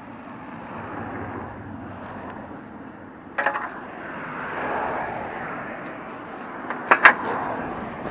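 Road traffic noise from a vehicle going by, swelling and fading in the middle. Short clusters of sharp knocks come about three and a half seconds in and again around seven seconds.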